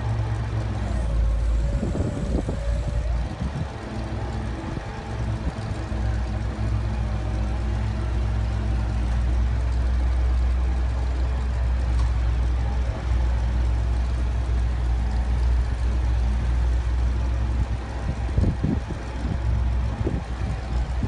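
Engine of a 1981 Chevrolet 6500 feed truck running steadily at idle while the truck's hydraulic unloading auger boom is swung up and back down.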